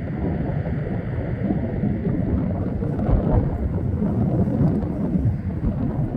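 Low rumble of a Southwest Boeing 737-700's jet engines on landing approach, mixed with wind buffeting the microphone.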